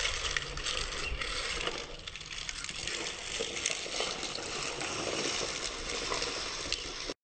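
Steady rain, a dense patter of drops striking a sheet-metal surface; it stops abruptly near the end.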